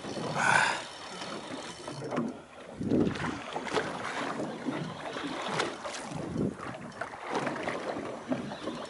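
Wind gusting on the microphone aboard a small boat at sea, an uneven rushing with irregular low thumps.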